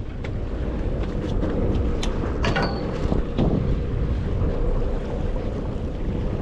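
Wind buffeting the microphone on an offshore fishing boat, over a low steady rumble with a faint constant hum. A few scattered clicks and knocks come through, the clearest about two and a half seconds in.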